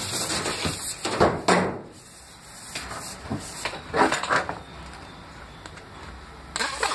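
Rigid PVC electrical conduit being handled, with rubbing, scraping and knocking, while a coiled steel bending spring is pushed and slid into the pipe. The noise comes in irregular bursts, loudest in the first second and a half and again around four seconds in.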